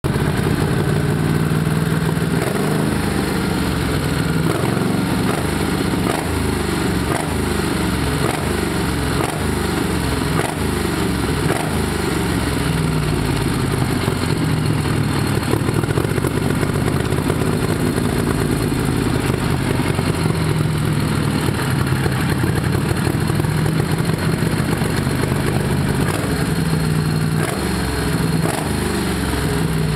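Mud motor's air-cooled gasoline engine running on a stand, revved up and down repeatedly for the first ten seconds or so, then holding a steadier speed, with another rev near the end.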